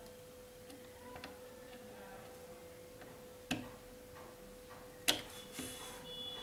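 Multimeter probe tips clicking and tapping against a TV circuit board during voltage checks: a few light ticks, then two sharper clicks about 3.5 and 5 seconds in. A faint steady hum runs underneath.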